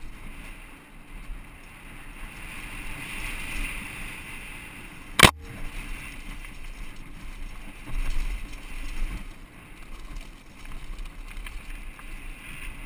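Giant Glory downhill mountain bike riding fast down a dirt trail: tyres rolling over dirt and dry leaves, the bike rattling, and wind rushing over the microphone. One sharp knock about five seconds in, as the bike hits a bump.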